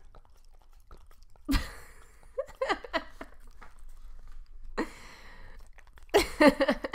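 A dog licking a person's arm close to the microphone: wet lapping and smacking clicks, in louder clusters about two seconds in and again near the end.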